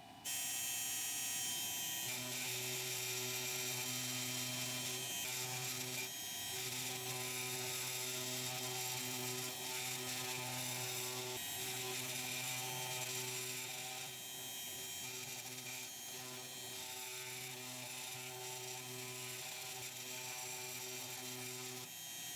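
ACMER Ascarva 4S desktop CNC router engraving hardwood with a 30-degree V-bit: the 70 W spindle runs with a steady high whine and hiss. From about two seconds in, the motion motors add a low hum that starts and stops every second or so as the head traces the logo.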